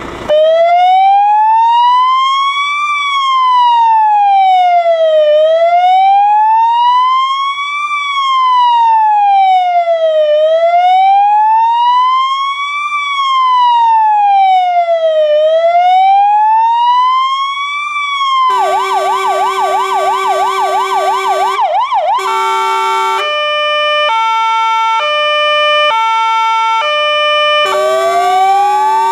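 Electronic siren on a fire-service vehicle cycling through its tones. A slow wail rises and falls about every five seconds, switches about eighteen seconds in to a fast yelp, then to a pattern of steady tones stepping between pitches, and returns to the wail near the end.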